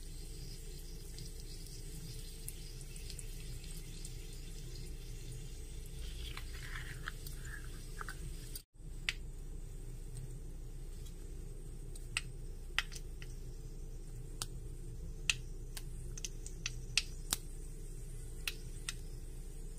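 Oil sizzling in a miniature iron kadai over a tiny wood fire as spices go in, with a short louder sizzle about six seconds in. In the second half, scattered sharp pops like mustard seeds crackling in the hot oil.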